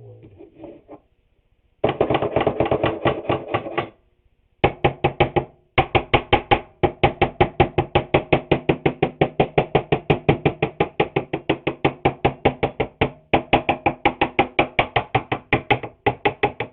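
Rapid, even knocking of a tool on a wooden board, about four strikes a second, in three runs with short breaks, each knock ringing through the wood.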